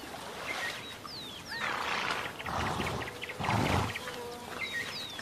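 Wild animal sounds: short descending whistled calls about a second in and again near the end, with rough, breathy animal noises in the middle.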